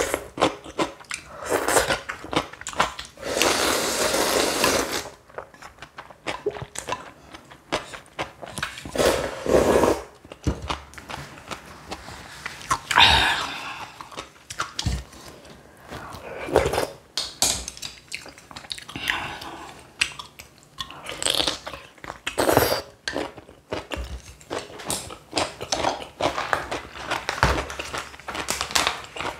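A person eating close to the microphone: irregular bites with crunching and chewing, some louder and longer than others.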